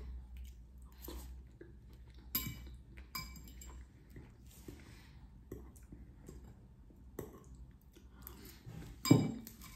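Close-miked chewing of short mafalde pasta in tomato and olive sauce, with small wet mouth clicks throughout. One louder knock comes near the end.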